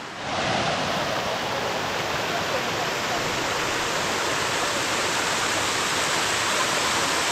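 Waterfall: falling water making a steady, even rush that starts suddenly and holds without change.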